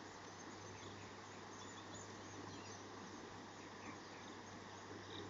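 Faint outdoor ambience: a steady hiss with a low steady hum underneath and scattered faint high chirps throughout.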